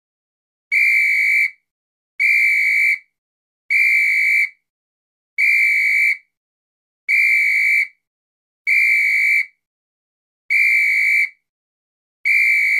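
Electronic beep sounding eight times. Each beep is a steady high tone a little under a second long, and they come about one and a half seconds apart with silence between them.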